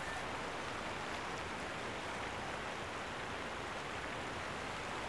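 Shallow stream rushing steadily over stones, an even hiss of running water.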